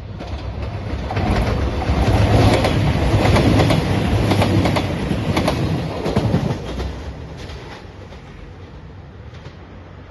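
JR Shikoku 2700 series diesel limited express train passing at speed, its wheels clicking over the rail joints. The sound swells over the first two seconds, stays loud for about four seconds, then fades away.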